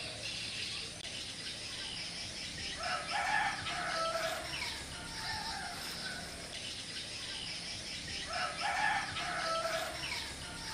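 A rooster crowing twice, about five seconds apart, over a steady faint background hiss.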